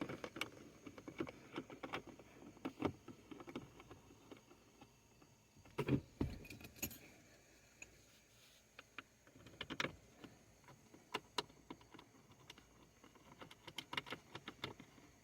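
Light metallic clicks and clinks of 10 mm bolts and hand tools being handled and the bolts fitted back in by hand, in scattered taps with louder clusters about six seconds in and again near ten seconds.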